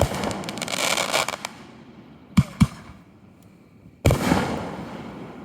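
Aerial fireworks going off: a crackling shell tail fades out, two sharp bangs come in quick succession about two and a half seconds in, then a loud burst about four seconds in trails off into a long fading crackle.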